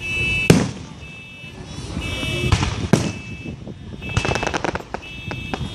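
Consumer fireworks going off: a sharp bang about half a second in, another near three seconds, and a burst of crackles around four seconds. A steady high alarm tone comes and goes between them.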